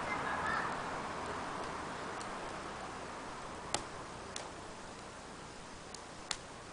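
Wood fire burning in a small fire pit: a soft rushing hiss that slowly dies down, with a few sharp crackling pops from the burning wood.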